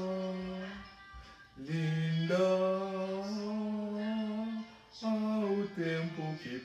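A man singing a slow song in Portuguese, holding long notes: a held note that fades out within the first second, then after a short pause a long note held for about three seconds, then a few shorter notes near the end.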